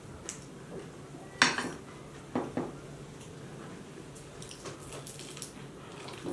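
A metal fork clinks sharply against a plate about a second and a half in, then knocks twice more a second later. Faint crackles of crisp fried samosa pastry follow near the end as it is broken and bitten.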